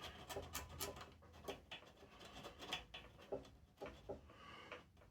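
Faint, irregular scraping and small clicks of a points file worked between the corroded breaker points of a vintage Briggs & Stratton engine, cleaning the contact faces.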